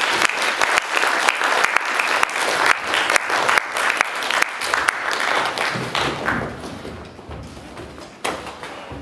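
Live audience applauding, dense clapping that holds for about six seconds and then dies away.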